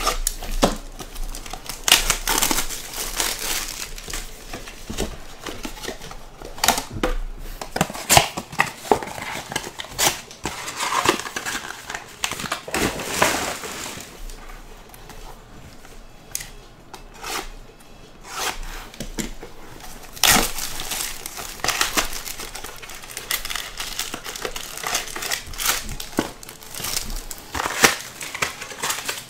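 Plastic shrink-wrap on a 2022 Bowman's Best trading card box being slit with a utility knife and torn off, then the cardboard box opened and foil card packs handled. An uneven run of crinkling and tearing with sharp crackles and taps.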